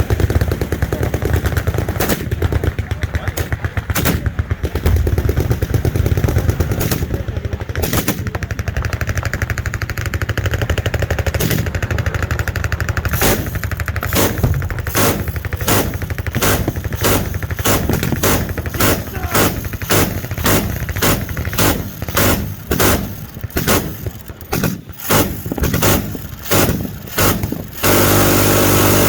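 Machine-gun and other automatic gunfire from several guns on a firing range. It is dense and overlapping at first, thinning after about twelve seconds into separate shots roughly one to two a second. Near the end a louder continuous noise lasts about a second.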